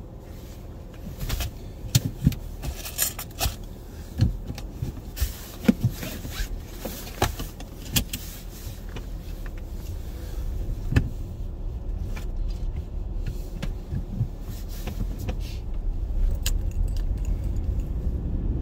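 Sharp clicks and jingling from handling things in a car's cabin, heaviest in the first half, over the low rumble of the car. The rumble grows louder toward the end as the car drives off.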